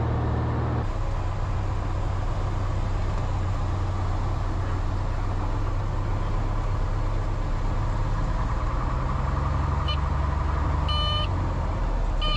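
Single-engine bush plane's piston engine and propeller running steadily, heard from inside the cockpit, its pitch changing about a second in as the plane goes from flight to rolling on the ground. Near the end, a few short high-pitched beeps sound over the engine.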